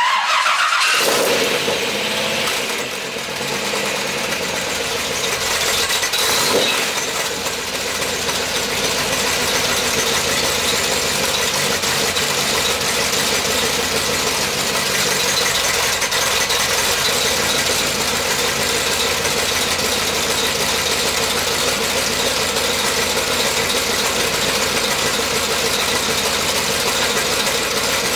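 1969 Corvette V8 starting cold after three months standing: it fires up suddenly with a flare of revs, surges briefly about six and a half seconds in, then settles into a steady idle through its dual exhausts.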